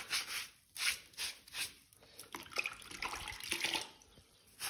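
Sooty fireplace bricks being scrubbed with a sponge: a run of quick rubbing strokes, with a short lull about two seconds in.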